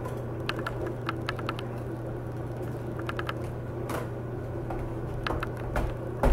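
Light, irregular clicks and taps of a small Phillips screwdriver working at the tiny screws of a laptop's screen bracket and plastic bezel, with a louder knock near the end. A steady low hum runs underneath.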